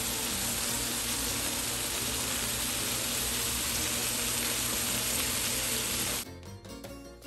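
Ribeye steaks sizzling on a ridged stovetop griddle (comal): a steady, dense hiss of searing meat and fat. It cuts off suddenly about six seconds in.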